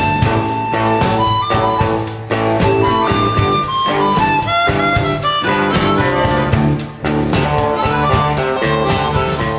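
Instrumental blues music: a harmonica playing over guitar with a steady beat.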